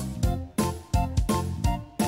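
Background music with a steady, even beat and pitched instrument notes.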